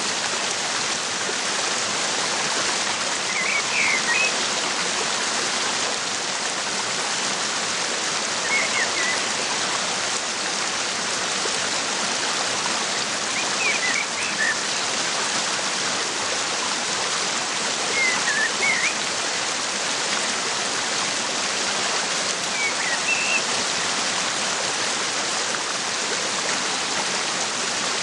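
Waterfall rushing steadily, with a small bird's short chirps repeating about every five seconds.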